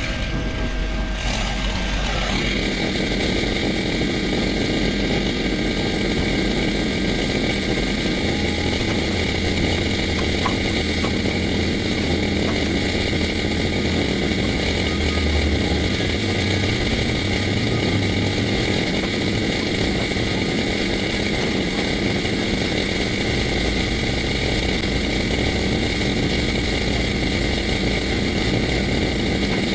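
A gas engine of tree-cutting equipment running steadily at high speed, settling into an even, unchanging note about two seconds in.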